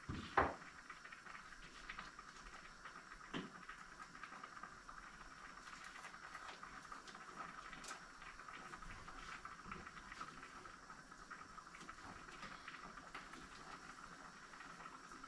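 Faint, steady sound of water in a kitchen, with a sharp knock about half a second in and a softer knock about three seconds in.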